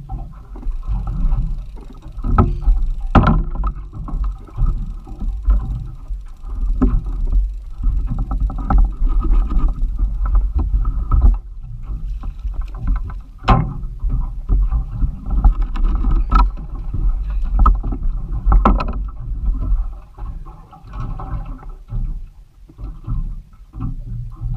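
Water sloshing and slapping against the hull of a small fishing boat at sea, over a steady low rumble, with a few sharp knocks on the boat.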